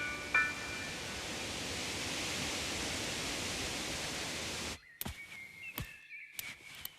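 Steady rushing noise, like a hiss of wind, that cuts off suddenly about five seconds in, followed by a few sharp clicks and faint high chirping whistles.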